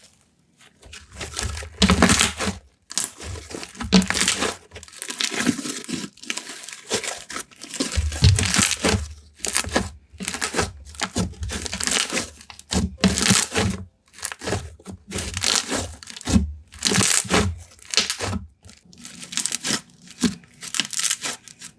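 Slime being squeezed, stretched and pressed by hand, making irregular bursts of crackling and clicking with short pauses between.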